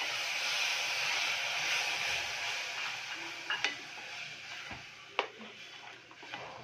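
Freshly added tomato purée sizzling in hot oil and fried masala as a wooden spatula stirs it, the sizzle dying down over a few seconds. Two sharp knocks of the spatula against the pot, about halfway through and a second and a half later.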